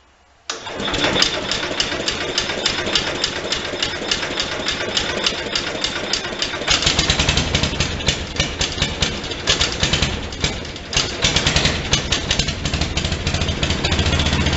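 Farm King MTD 990 garden tractor's 16 hp Briggs & Stratton cast-iron single-cylinder engine running cold after a cold start, with a rapid even chuff of firing strokes. It comes in about half a second in and gets louder and deeper from about seven seconds in, dipping briefly around ten seconds.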